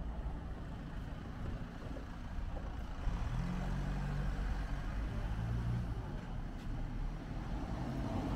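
Cars driving slowly past close by, one after the other, with a low engine hum that grows louder about three seconds in as the first car passes.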